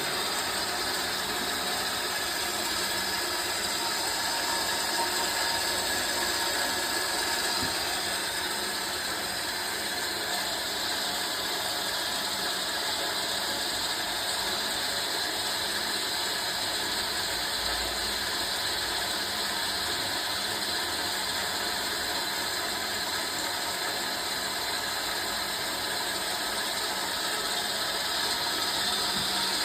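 Wabeco CNC lathe running with a steady mechanical whine: an even noise with several constant tones that does not change.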